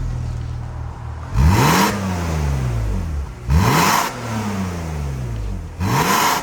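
BMW E46 320ci's M54B22 inline-six, breathing through an MS-R valved aftermarket exhaust, blipped three times from idle: each rev climbs quickly and then falls slowly back to idle.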